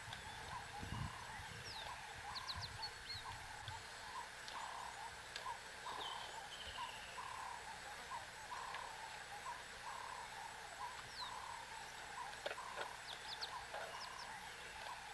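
Birds calling: a continuous run of short, repeated calls, several a second, with scattered higher chirps above them.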